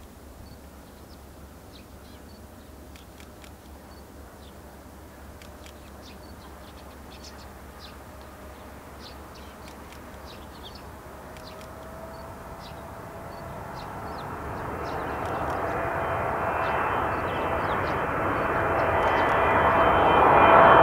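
Boeing 777-300ER's GE90-115B jet engines on final approach, a jet rumble growing steadily louder as the aircraft closes in. A steady engine whine comes in about halfway through and strengthens toward the end.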